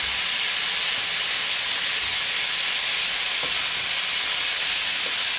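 Thin marinated minute steaks sizzling steadily on the hot plates of an OptiGrill electric contact grill, preheated on its steak searing setting, with sliced mushrooms frying in a pan alongside.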